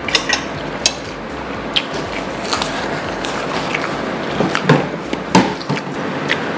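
Light tableware clatter: scattered clicks and knocks of utensils against dishes, a few louder ones near the middle and toward the end.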